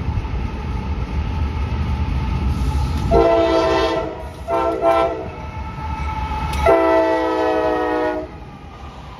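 Norfolk Southern diesel locomotive's air horn sounding a multi-note chord in blasts: one about three seconds in, a shorter broken one, then a long blast that cuts off near the end. Before the horn, the approaching locomotive's engine gives a low rumble.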